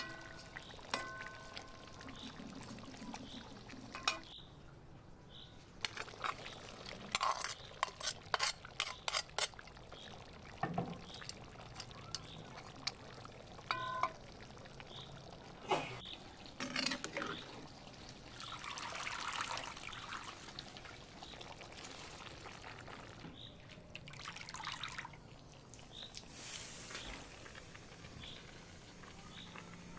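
A perforated metal skimmer clinking, tapping and scraping against an aluminium cauldron as carrots, raisins and rice are layered over simmering meat broth, with the metal briefly ringing a couple of times. In the second half come two stretches of soft rushing, as of rice being spooned in, over a low bubbling of liquid.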